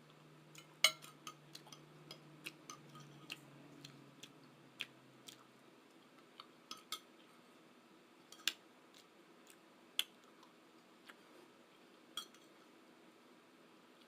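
Eating utensils clinking and tapping against dishware in a run of light, separate clicks, the loudest about a second in and a few sharper ones scattered later.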